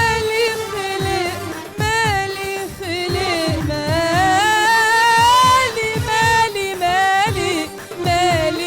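A woman singing an ornamented Arabic-style melody over instrumental accompaniment with regular low drum hits, rising through a long held note near the middle.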